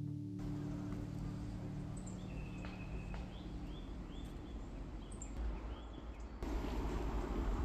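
Outdoor ambience with a small bird calling: a run of short, arched chirps from about two seconds in, over a low rumble. Near the end the background noise gets louder.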